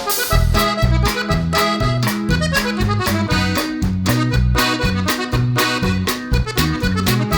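Upbeat background music with a steady beat and a bouncing bass line, led by an accordion-like reed melody.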